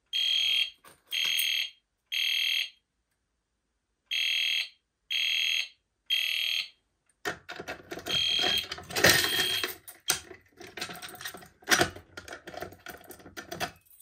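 Fire alarm horn of an EST Genesis horn-strobe sounding the temporal-three evacuation code, two rounds of three beeps with a pause between rounds, set off by pulling a manual pull station. It is followed by irregular clicks and clatter as the pull station is handled.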